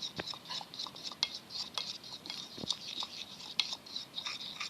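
A spoon stirring clear glue and a little water in a container, scraping and clicking against the sides and bottom in a quick, uneven run of strokes.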